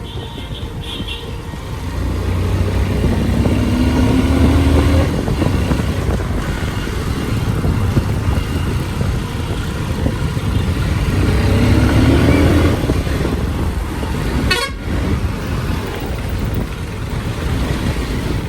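Motorcycle engine running on the move, rising in pitch twice as the bike accelerates, over steady wind and road rumble.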